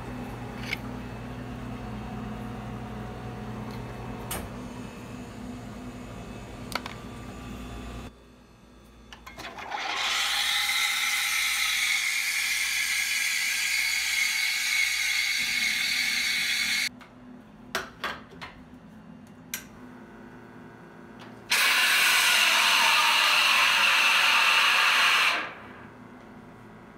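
Espresso machine steam wand blowing steam into a stainless pitcher of cleaning water: a loud hiss for about seven seconds, then after a short pause with a few clicks, a second, shorter burst of steam. Before the steam, a low machine hum with a few light clicks.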